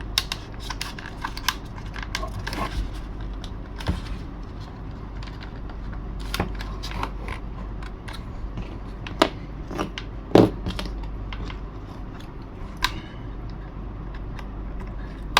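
Scattered small clicks and taps of hands handling and adjusting a small cockpit latch and its parts, with a sharper knock about ten seconds in.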